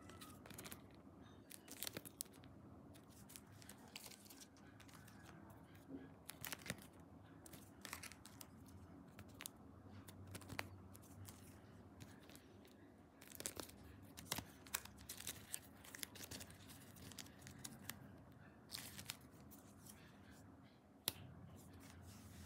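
Faint handling of photocards and plastic sleeves: light rustling and crinkling with scattered small clicks and taps. There is one sharper tap near the end.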